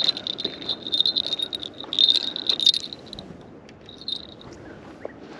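Small fishing-rod bell jingling in uneven, shaking bursts. It stops about three seconds in, jingles briefly once more near four seconds, then falls still.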